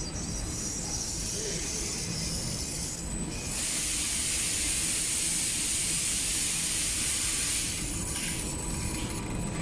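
Cable making machinery running with a steady mechanical rumble. A loud hiss comes in about three and a half seconds in, holds for about four seconds, then stops.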